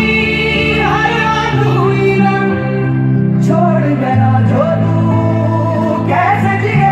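Hindi song playing loudly: a singer's voice over sustained instrumental chords and bass notes that change every second or so.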